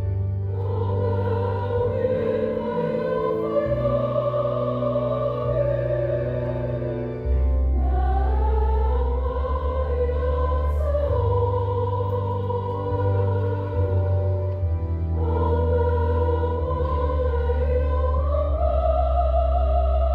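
Samoan choir singing a slow song in parts, voices held on long notes with vibrato over deep sustained bass notes that change every couple of seconds.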